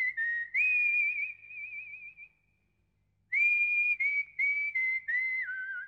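A person whistling commands to a dog: long warbling notes at first, a short silence around the middle, then a string of short notes stepping down in pitch.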